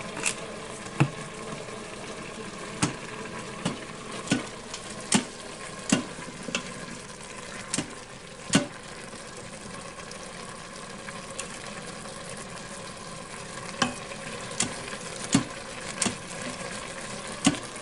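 Chicken and vegetable stir-fry sizzling in a pan as it is stirred, a utensil clacking against the pan at irregular intervals.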